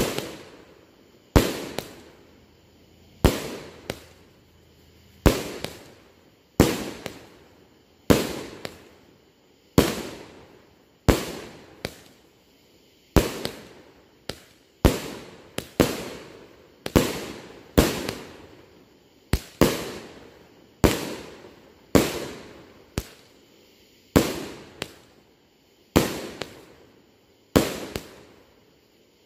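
Magical Barrage 500-gram firework cake firing its shots one after another: about twenty sharp bangs, roughly one every one to one and a half seconds, each dying away over about a second.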